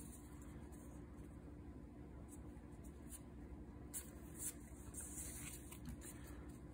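Faint rubbing and sliding of a stack of Magic: The Gathering cards handled between the fingers, with a few soft swishes a little past the middle.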